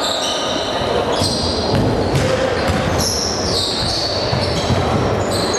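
Basketball game sounds in a sports hall: many short, high squeaks from sneakers on the hardwood court, with the basketball bouncing on the floor. The hall's echo is heard over it.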